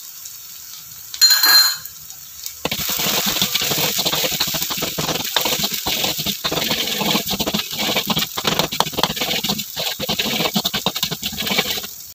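A steel spoon clinks once against a steel kadai, then a perforated steel ladle scrapes and stirs frying onions and ginger-garlic paste around the kadai: a dense, uneven run of metal scraping and knocks that goes on until just before the end.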